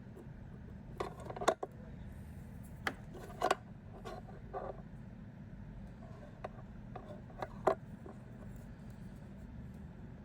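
Scattered light clicks and taps of small metal tools and phone parts being handled, over a steady low hum.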